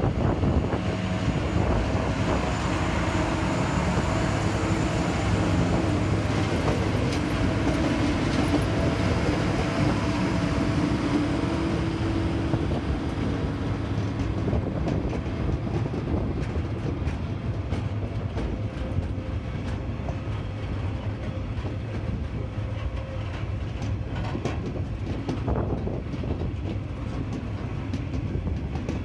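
Diesel locomotives passing close by, their engines running with a steady drone that fades after about the first half. Loaded log wagons then roll past, wheels clacking over the rail joints.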